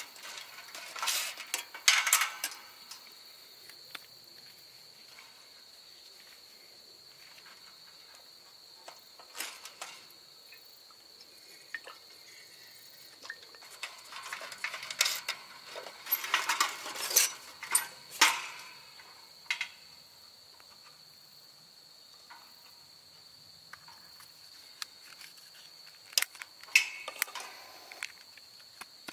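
Scattered clinks and knocks of hard objects being handled, in clusters near the start, around the middle and near the end, over a steady high-pitched insect trill.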